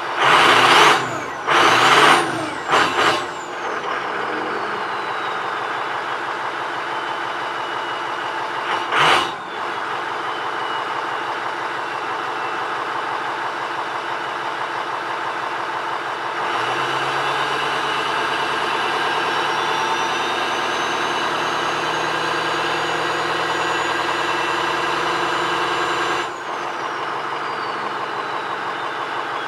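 Ford 6.0L Power Stroke V8 turbo-diesel idling, with its stock Garrett variable-geometry turbo whistling. Three quick throttle blips near the start and another at about nine seconds each bring a loud rushing burst, and a high whistle falls away after each. Later the engine is held at raised revs for about ten seconds while the whistle slowly climbs, then drops back to idle with the whistle falling.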